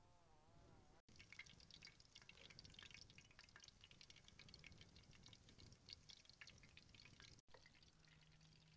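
Faint wet clicks and drips of thick batter being stirred and spooned in a wooden bowl, with shrimp dipped through it.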